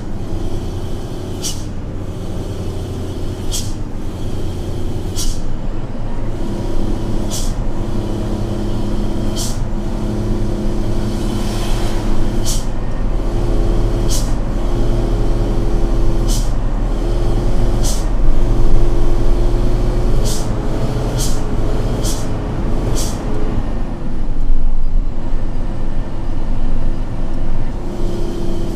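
A truck's diesel engine is heard from inside the cab, running steadily as the truck descends without using the brakes, held back by the engine. Short sharp ticks come every second or two, and near the end the engine note drops away briefly before picking up again.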